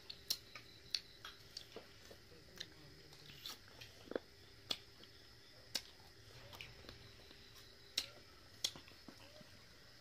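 A person eating by hand, close to the microphone: irregular short, sharp mouth clicks and smacks from chewing and licking the fingers, about one a second.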